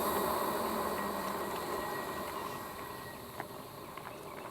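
Magicycle Jaguarundi e-bike rolling along a rough road: steady riding noise that fades gradually, with a couple of small clicks late on.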